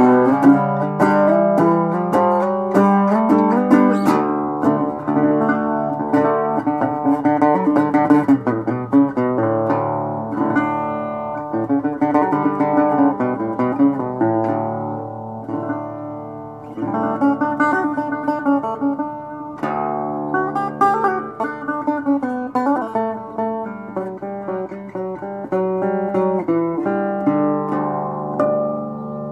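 Metal-bodied resonator guitar with picked chords and single notes ringing out, growing quieter near the end.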